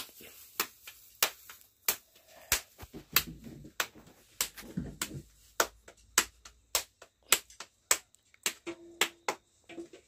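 Hands slapping roti dough flat between the palms: a quick, uneven run of sharp slaps, about two a second, from more than one person.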